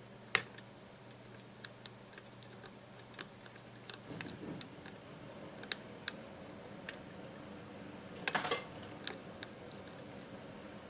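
Scattered small metallic clicks of a lock pick and tension wrench working the pin stack of a Bearsback challenge lock, with a short cluster of clicks about eight seconds in.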